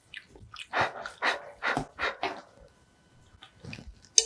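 A person huffing out several quick, breathy breaths through an open mouth to cool a mouthful of steaming-hot rice porridge that is too hot to eat, then a sharp click of a spoon against the bowl near the end.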